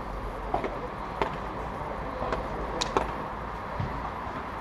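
Padel rally: a padel ball being struck by solid paddle rackets and bouncing on the court, heard as several sharp pops at uneven intervals, with a close pair about three seconds in, over a steady low background noise.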